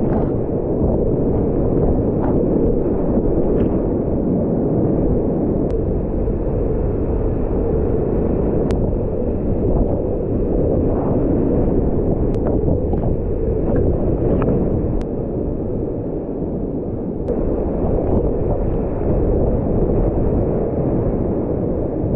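Whitewater rapids rushing around a kayak: a steady, loud, dull roar with faint ticks of water now and then.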